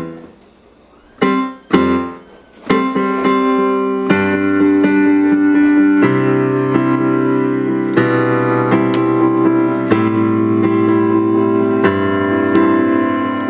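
Digital piano being played: a few separate chords with short pauses, then from about four seconds in a steady run of sustained chords over a bass note that changes about every two seconds.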